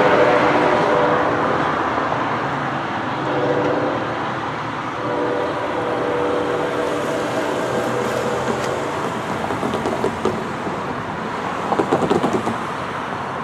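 NJ Transit GP40PH-2B locomotive's K5LA air horn sounding several blasts as the train moves away, fainter with each one, over the low rumble of the departing train. Near the end, a car's tyres bump across the grade-crossing rails in a quick run of thumps.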